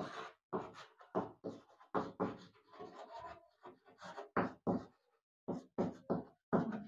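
Chalk writing on a blackboard: a quick run of short strokes and taps as a word is written out.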